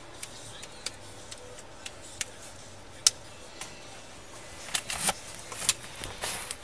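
Irregular sharp clicks, a few a second apart, from keys being pressed on a patrol car's laptop, then a cluster of louder knocks and rustles near the end as the body-worn camera is jostled.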